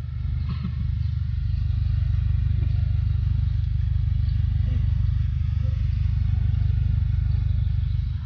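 Steady low rumble with a fast, even pulse.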